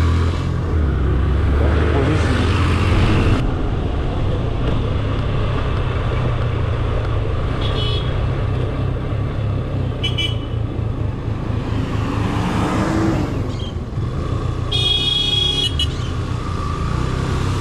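Motorcycle engine running while riding along a street, with road and wind noise. Short high-pitched horn toots come around 8 and 10 seconds in, and a longer toot lasts about a second near 15 seconds. Around 12–13 seconds a passing vehicle rises and falls in pitch.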